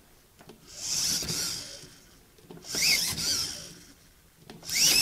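Hobby R/C servos in a 3D-printed robot-dog leg whirring in three short bursts about two seconds apart, some with a rising and falling whine, as the leg is pushed by hand and the servos actively drive it back like a spring under software compliance control.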